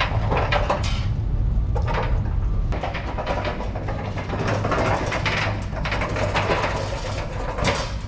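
Steel flatbed cart rolling over a concrete floor with two buckets of joint compound on its deck: a steady low rumble from the casters with a continuous clatter and rattle.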